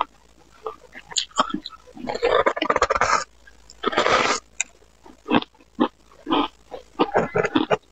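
Teeth biting into a chunk of frozen, refrozen shaved ice: a long crunch about two seconds in and another about four seconds in, then a string of sharp crackles as the ice is chewed.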